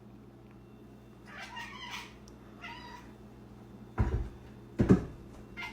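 Domestic cat meowing twice, then two dull thumps about four and five seconds in.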